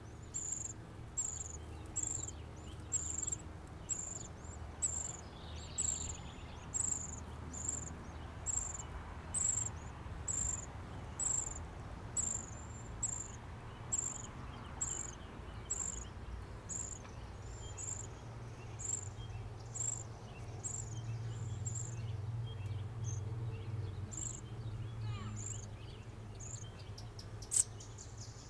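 A steady, even series of short, high chirps, about one and a half a second, growing fainter after about twenty seconds, over a low hum.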